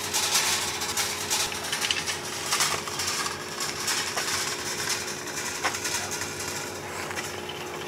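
Wire shopping cart rattling and clattering as it is pushed over pavement, its metal basket and casters jangling in a steady stream of irregular clicks, with a faint steady hum underneath.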